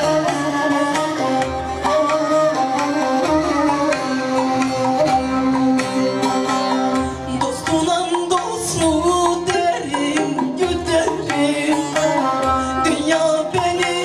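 Live Turkish folk song (türkü): a kabak kemane bows the melody over bağlama and hand-drum rhythm. About halfway through, a woman's solo voice comes in singing over the ensemble.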